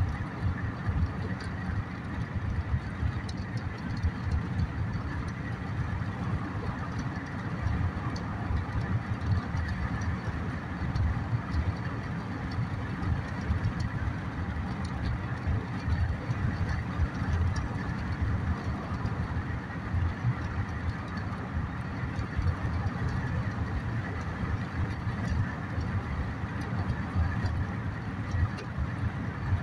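Road and engine noise inside a moving car's cabin: a steady low rumble that runs on without a break.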